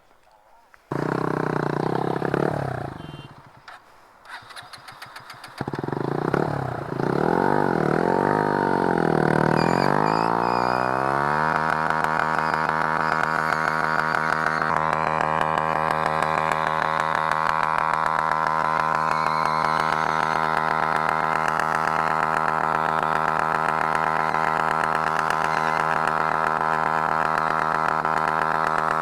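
An engine starts twice: the first run dies away within a few seconds, and on the second its pitch wavers up and down before settling, from about halfway in, into a steady even run.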